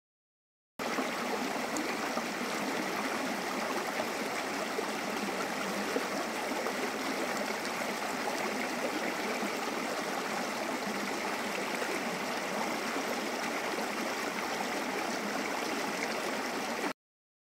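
Creek water flowing, a steady rushing that starts abruptly about a second in and cuts off suddenly near the end.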